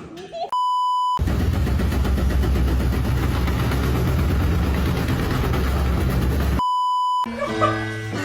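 Two identical electronic beeps, each about half a second long, with a low, steady mechanical rumble in between. Music starts near the end.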